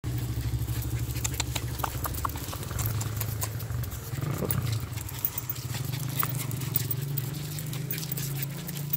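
Dogs' claws and the metal leash clips tapping and clicking irregularly while several small terriers walk on concrete, over a steady low rumble.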